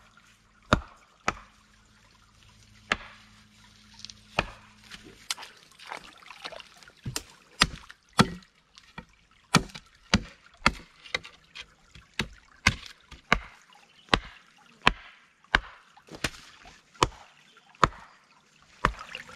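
Wooden stakes being sharpened and driven: a hatchet chopping a stick to a point on a log, and a rock pounding stakes into a creek bed, in a long run of sharp strikes at about one or two a second.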